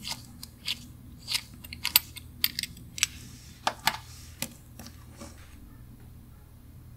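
Irregular metallic clicks and short scrapes as the steel case back of a vintage Orient Surfer diver's watch is taken off and the watch and its metal bracelet are handled. The clicks stop about five and a half seconds in.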